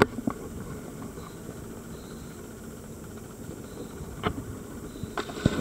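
Muffled low rumble of sea water slopping against a waterproof camera housing held at the surface, with a few sharp knocks of the housing being handled near the end.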